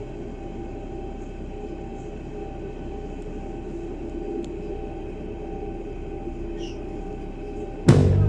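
Berlin S-Bahn electric commuter train running: a steady rumble with a few faint steady tones over it. Loud music cuts in suddenly just before the end.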